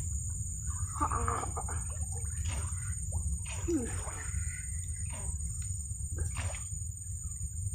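Insects droning at a steady high pitch over a constant low rumble, with scattered clicks and a short vocal sound about a second in.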